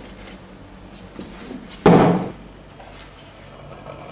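A single hard knock about two seconds in, with a faint click a little before it: sample containers being handled on a lab bench.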